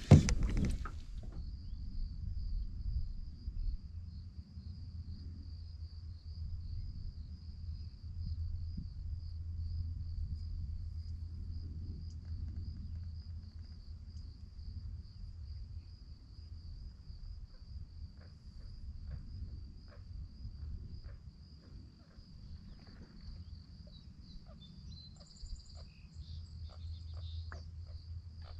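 A steady high-pitched insect trill, cricket-like, over a low wind rumble. A sharp thump at the very start, and faint light ticks in the second half.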